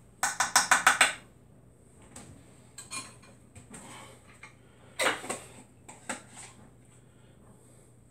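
A spoon rapped quickly against a glass baking dish, about seven sharp clinks in a second, knocking off garlic paste. Then a few scattered clinks and knocks of utensils and jars on the counter, the loudest cluster about five seconds in.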